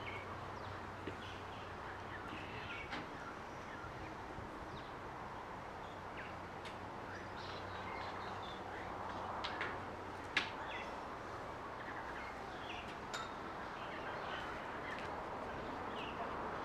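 Quiet outdoor backyard ambience with scattered faint bird chirps over a steady background hush, and a single sharper click about ten seconds in.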